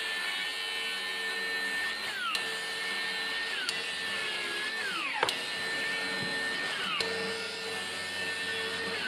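Cordless DeWalt circular saw cutting timber rafters: a steady high motor whine that winds down each time the trigger is released and starts up again, four times. The deepest wind-down comes about five seconds in.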